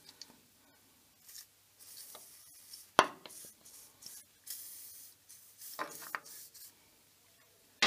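Aerosol can of lubricant spray hissing in several short bursts. A sharp knock comes about three seconds in, the loudest sound, followed by a few lighter clicks.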